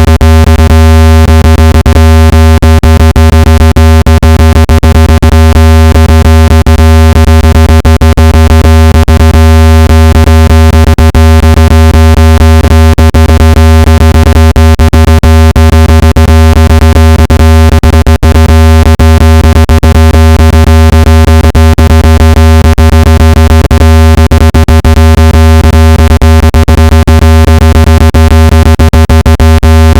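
Speaker-cleaning tone for driving water and dust out of a phone speaker: a loud, steady, low-pitched buzzing tone with many overtones, unchanging throughout.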